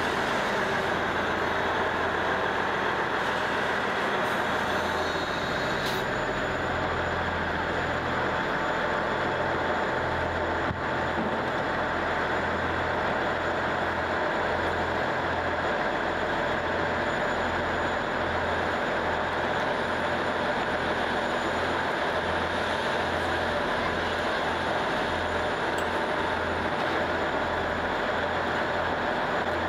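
Diesel multiple-unit commuter train standing with its engine idling: a steady, unbroken engine hum.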